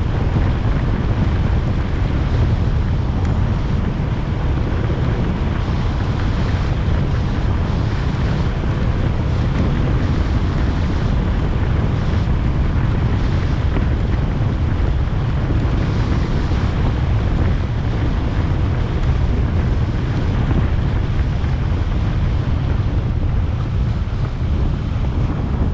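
Wind buffeting the microphone of a camera on a moving motorcycle: a steady, dense rush with a heavy low rumble.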